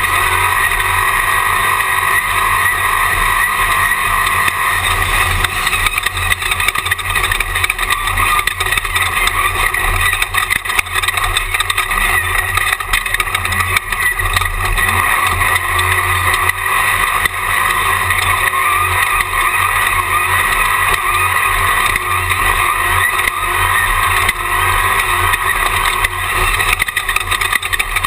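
Jimco Class 1 unlimited desert race car heard from inside the cockpit, its engine running steadily at speed.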